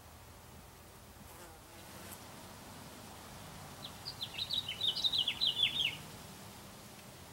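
A wasp's faint, low wing buzz, and about four seconds in a bird's quick trill of short, falling chirps that lasts about two seconds and is the loudest sound.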